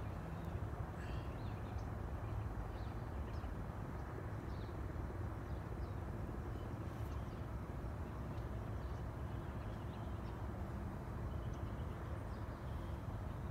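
Steady low outdoor rumble of a suburban street, with a few faint, short high chirps scattered through it.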